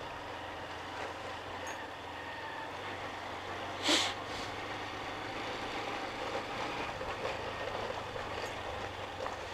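Small motorcycle engine running steadily while riding, with tyre noise on wet cobblestones. A short rushing burst of noise about four seconds in.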